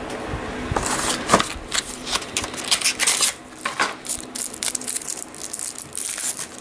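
Trading cards being handled and flipped through by hand: card stock slides, rasps and snaps against card in a quick, irregular run of sharp clicks.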